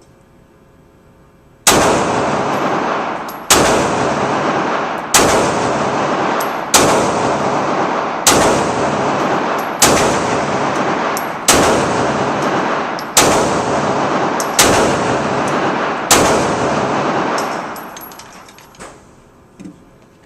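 Ruger SR9 9mm pistol fired ten times at a steady pace, about one shot every second and a half, each shot followed by a long echoing tail from the indoor range.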